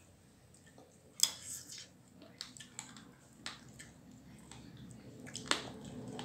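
Eating by hand from metal plates: soft chewing and squishing of food, with scattered sharp clicks and taps of fingers on the plates, the loudest about a second in and another near the end.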